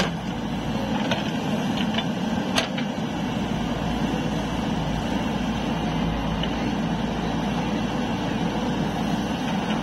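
JCB 3DX backhoe loader's diesel engine running steadily under load while its rear arm digs soil and swings to dump it into a tractor trolley. A few sharp knocks come in the first three seconds.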